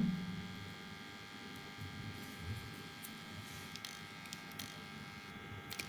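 Faint, steady electrical buzz of a homemade soldering gun switched on and heating up, with a few light ticks.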